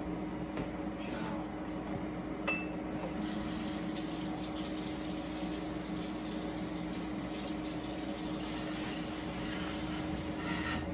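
Water running steadily, filling a container, starting about three seconds in after a short clink.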